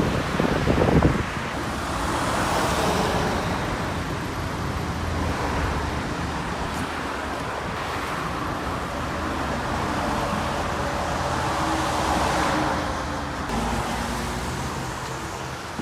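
Road traffic: cars passing by, one about two seconds in and another near the end, over a steady traffic hum, with a low wind buffet on the microphone at the start.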